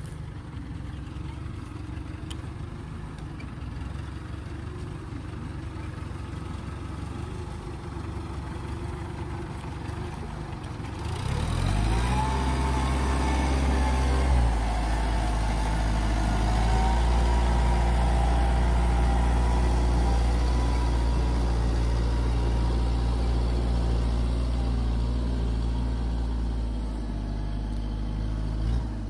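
Farm tractor's diesel engine running steadily as the tractor pulls a disc plough through wet field soil. The engine grows much louder about eleven seconds in, its note rising and then holding steady, and it falls off near the end.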